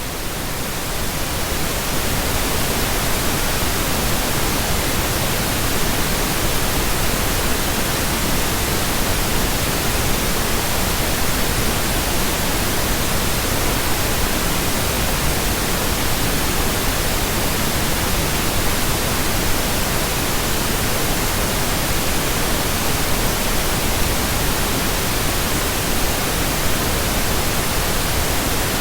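Steady pink noise, an even hiss spread across all pitches with no tone or rhythm in it. It swells up over the first second or two, then holds level.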